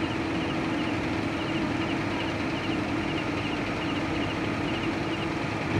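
A heavy machine's diesel engine running steadily with a constant hum, under an even hiss of rain.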